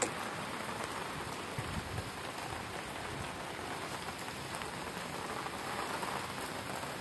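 Steady rain falling on surfaces, an even hiss throughout, with a couple of soft low thumps about two seconds in.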